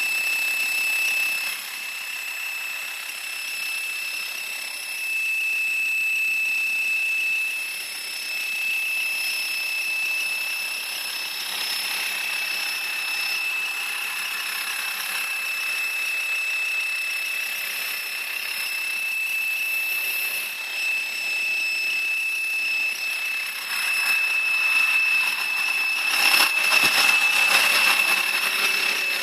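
Volkswagen Transporter T5 engine idling with a steady, high-pitched whistle, a fault noise that shows at idle. A louder rush of broader noise joins the whistle near the end.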